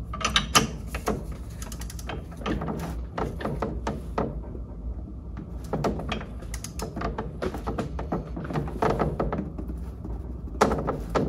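Metal clicks and knocks from a torque wrench and pinion nut tool being worked on a Mercruiser lower unit's drive shaft while the pinion nut is tightened toward 100 ft-lb, with a quieter stretch about halfway through.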